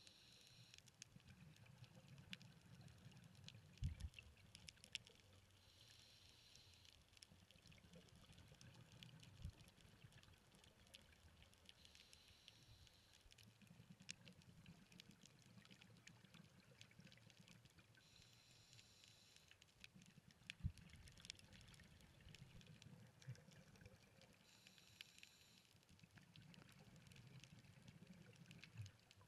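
Faint underwater scuba breathing: a short regulator hiss about every six seconds, with low bubbling between and scattered light clicks.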